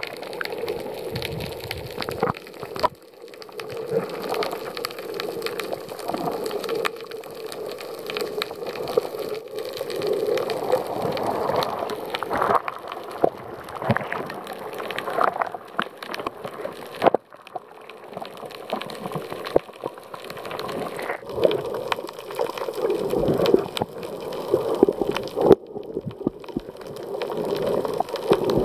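Muffled underwater water noise picked up by a submerged camera, with a scatter of small clicks and crackles throughout.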